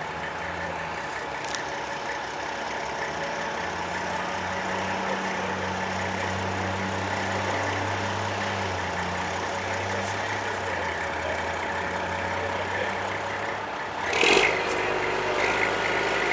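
Heavy engine running steadily, getting louder a few seconds in and easing off again, with a short loud burst of noise about fourteen seconds in.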